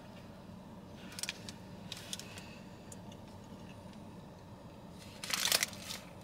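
Quiet chewing of a donut with small clicks and a paper bakery wrapper rustling, and one louder rustle about five seconds in. A steady low hum of the car cabin lies underneath.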